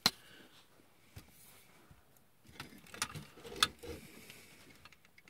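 A clear plastic ruler knocking and clicking as it is handled and stood upright beside a plastic toy robot: one sharp click at the start, then a cluster of light knocks about three seconds in.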